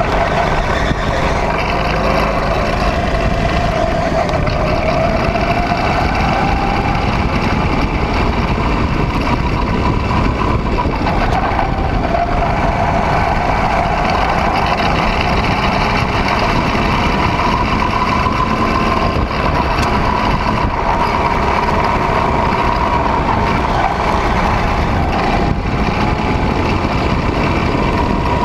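Go-kart engine running hard, heard from on board the kart as it laps the track. Its pitch climbs on the straights and drops when the throttle is lifted for corners, most clearly about eleven seconds in.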